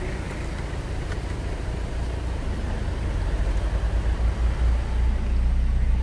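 Low, steady rumble of a 4x4's engine and tyres heard from inside the cabin as it drives slowly along a dirt trail, growing a little louder in the second half.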